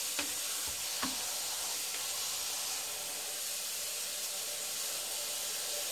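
Kitchen tap running steadily into a bowl of nettle leaves in a stainless-steel sink, the water splashing over the greens as they are rinsed. A couple of light knocks come in the first second.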